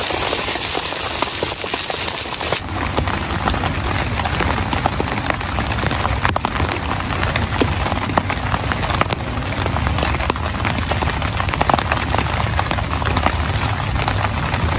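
Heavy rain falling, with many separate drops striking close by. About two and a half seconds in, the sound changes abruptly from a dense high hiss to closer drop ticks over a low rumble.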